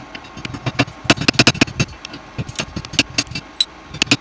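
Slag hammer chipping slag off a freshly laid stick (MMA) weld bead on steel. Quick, irregular metal-on-metal taps, densest in the first half, with a few more near the end.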